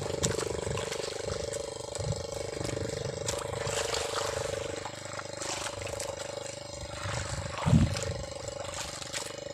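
Steady engine hum of a motorboat with a haze of wind and water noise, scattered small knocks from handling in the wooden boat, and one dull thump near the end.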